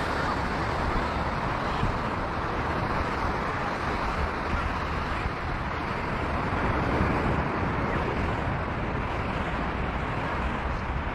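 Steady wash of ocean surf mixed with wind buffeting the microphone.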